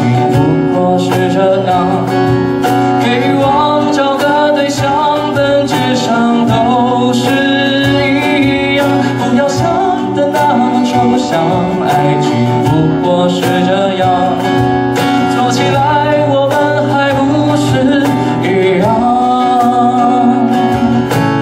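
Acoustic guitar strummed in a song, with a voice singing over it. Sharp strokes keep a steady beat.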